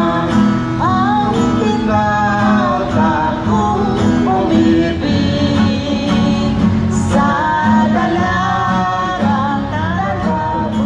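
A small group of men and women singing together to an acoustic guitar.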